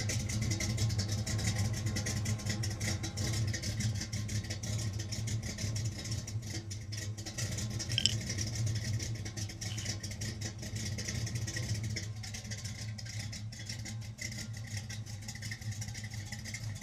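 1967 Chevrolet C10's 327 small-block V8 idling steadily through Hedman full-length headers and Flowmaster mufflers, with a brief click about eight seconds in.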